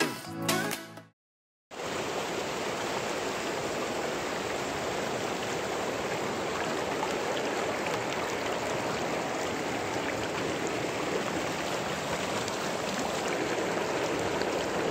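Fast-flowing mountain stream, a steady rush of water that starts just under two seconds in, right after a short burst of music stops.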